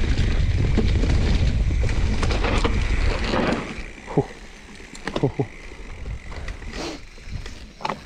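Mountain bike descending a rough technical trail: loud wind rush on the camera microphone and the bike rattling over the ground. After about four seconds it gets quieter, with scattered clicks and a few short squeaks that fall in pitch.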